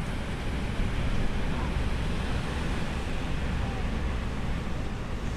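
Wind buffeting the microphone over the steady wash of rough surf.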